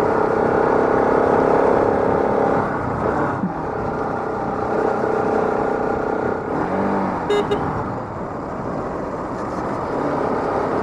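Bajaj Pulsar RS200's single-cylinder engine running under way through its stock exhaust, its note breaking briefly about three seconds in. A short high beep sounds about seven seconds in.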